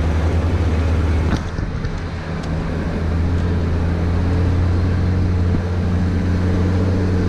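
Toyota 80 Series LandCruiser's engine running steadily as it drives a rough dirt track, with tyre and road noise, heard from a camera on the outside of the vehicle. A brief knock sounds about a second and a half in.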